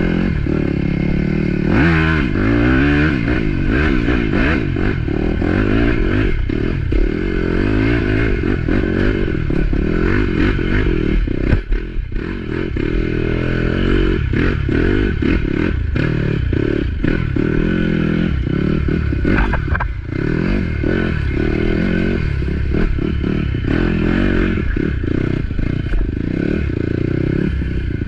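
Off-road motorcycle engine running and revving up and down under load, its pitch rising and falling, with frequent knocks and clatter throughout as the bike crosses rough ground.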